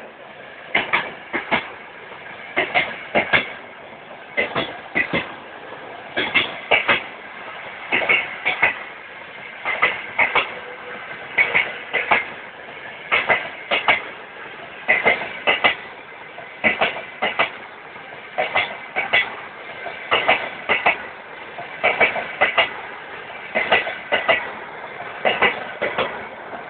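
Steel wheels of passing passenger coaches clattering over rail joints: a cluster of sharp clicks about every second and three quarters, as each coach's bogies cross a joint, over a steady rolling hiss.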